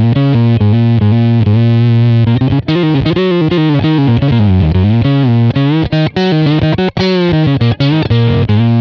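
Electric guitar played through an EarthQuaker Devices Bit Commander octave synth pedal, with the filter opened up and the base tone and octave-down voices blended in, giving a distorted, synth-like tone. A riff of single notes with a few gliding slides and short breaks between notes.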